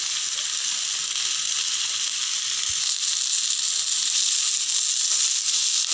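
Marinated chicken pieces sizzling on a hot ridged stovetop grill pan: a steady, even hiss.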